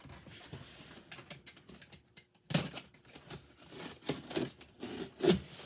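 A knife slitting the packing tape on a cardboard box and the box being opened. A sharp scrape comes about two and a half seconds in, followed by a run of short scraping and rustling strokes.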